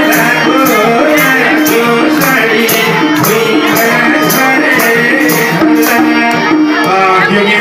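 Nepali lok dohori folk music: a melody moving in stepped notes over a steady, quick percussion beat.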